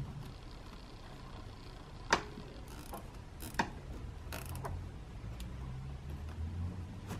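Small plastic cable ties being pulled tight around a hose in an engine bay: a few sharp ratcheting clicks, the loudest about two seconds in, over a low steady hum.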